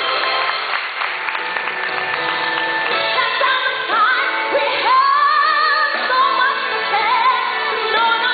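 Live pop ballad: a band plays, and a woman's singing voice comes in about three seconds in, held notes wavering with vibrato.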